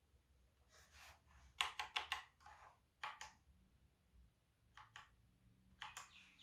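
Typing on a Velocifire VM02WS wireless mechanical keyboard: sharp, irregular key clicks, with a quick run of about five keystrokes, then a few scattered pairs.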